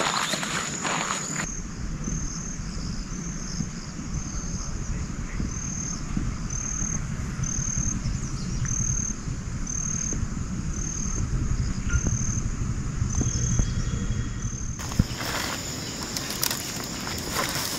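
Forest insects: a short high chirp repeating a little slower than once a second over a steady high buzz, with a low steady rush beneath. Rustling and stepping sounds come at the start and again for the last few seconds.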